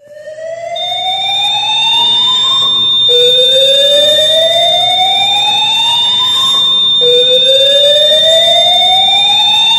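Addressable fire alarm system sounding its alert signal, a whooping tone that rises in pitch and repeats about every four seconds. A steady high-pitched tone comes in just under a second in and holds alongside it. This is the sign that an alarm has been activated.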